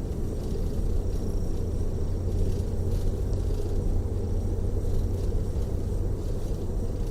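Tour coach's engine and road noise heard from inside the passenger cabin: a steady low rumble while driving.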